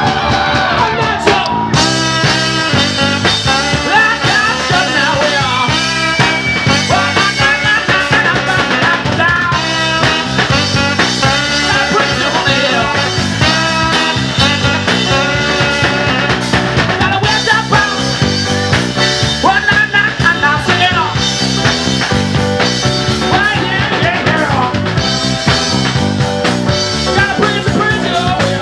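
Live band playing an upbeat instrumental passage with a steady beat.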